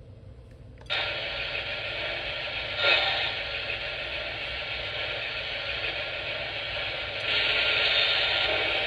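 Sound system of a Lionel K-Line A-5 model steam locomotive playing a steady steam hiss that starts suddenly about a second in, with a brief louder burst about three seconds in and a longer, louder stretch near the end.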